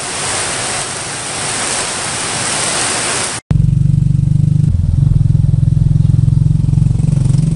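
Heavy rain pouring steadily; after a cut about three and a half seconds in, a vehicle's engine running steadily at a low, pulsing pitch, heard from on board as it drives along a wet road.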